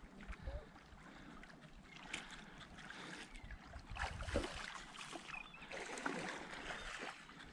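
Small wavelets lapping faintly and irregularly at a sandy shoreline.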